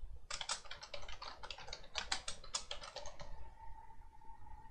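Typing on a computer keyboard: a quick run of about twenty keystrokes over about three seconds, then it stops.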